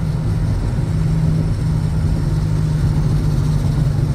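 Infiniti V36 sedan's VQ V6 engine holding a steady low drone while cruising, heard from inside the cabin.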